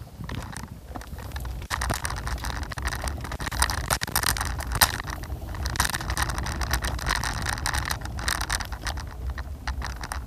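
Scooter riding over rough pavement: a steady low rumble of wheels on the road, with constant rattling and clicking as the frame, which has no suspension, jolts over the surface.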